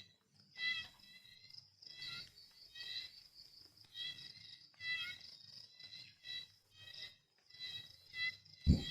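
High repeated chirping, like insects, coming in short bursts about once a second, with a single dull thump near the end.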